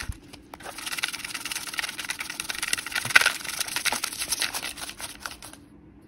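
Paper name slips sliding and rustling around a plastic gold pan as it is swirled and shaken, a continuous papery rustle with small ticks that stops about five and a half seconds in.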